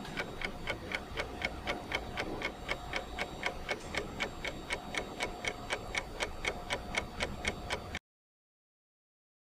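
Rapid, even clock-like ticking, about four ticks a second, over a faint steady hum. It cuts off suddenly into silence near the end.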